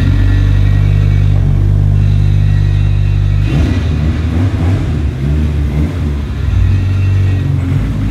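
Nissan Silvia S15's freshly built forged SR20DET turbocharged four-cylinder engine idling steadily. About three and a half seconds in, its note turns uneven and the revs rise and fall as the car moves off.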